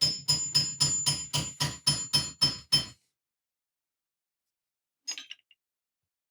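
A hammer tapping a new oil seal down into the bore of a Saginaw power steering gear housing: about a dozen quick ringing metal strikes, about four a second, stopping after three seconds. One lighter clink follows about five seconds in.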